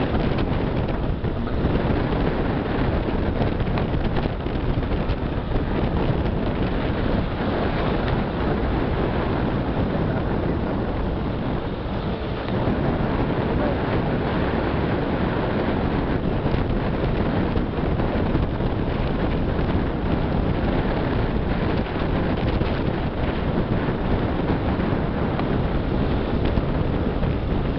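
Steady rush of wind buffeting the microphone over the road and engine noise of a moving car.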